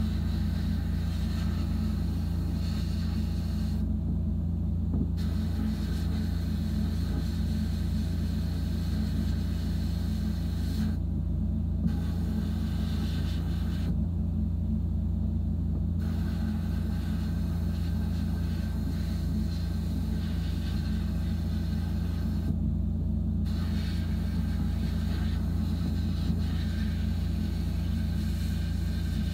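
Sandblast cabinet in use: the steady hiss of the blast nozzle cleaning a small metal toy-truck part. It cuts off briefly about four times as the trigger is let go, over a constant low machine hum.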